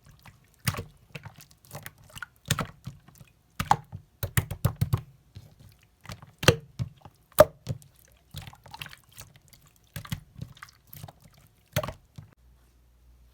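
Slime being squeezed and pressed by hand, making irregular wet clicks and pops that stop near the end.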